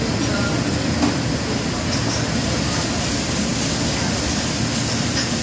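Wok burners and kitchen extraction hood of a commercial Chinese kitchen running, a steady rushing noise, with a light knock of a metal utensil about a second in.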